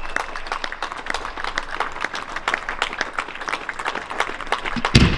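Spectators clapping, a dense patter of hand claps, with one loud firework bang near the end.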